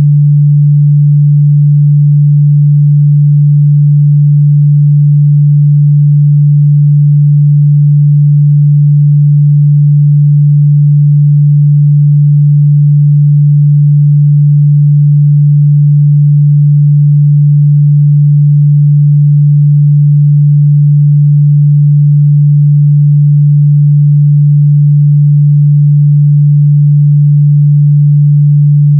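A steady, loud 146 Hz sine-wave test tone, a single low hum held at one pitch and level.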